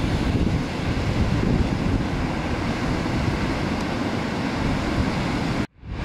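Wind buffeting the microphone over the steady wash of breaking surf. The sound drops out for a split second near the end.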